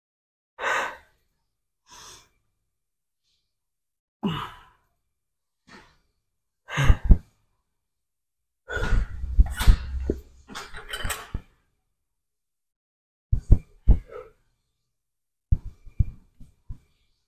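A man breathing out hard in separate heavy exhales and sighs from exertion during a workout, with several loud thumps and knocks of gym equipment in the middle and a run of sharp clicks near the end.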